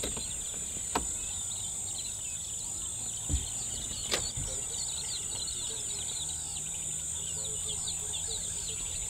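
Daytime bush ambience: a steady high insect drone with many short bird chirps over it, and a few sharp clicks.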